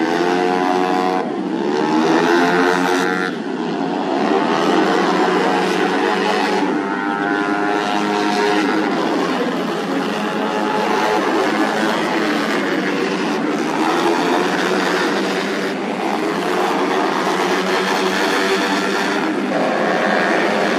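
Several tuned 130 cc automatic scooters racing, their engines revving high, overlapping and rising and falling in pitch as they pass one after another.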